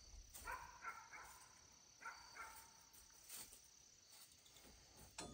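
Near silence: a faint outdoor background, with a few faint short sounds about half a second in and again about two seconds in.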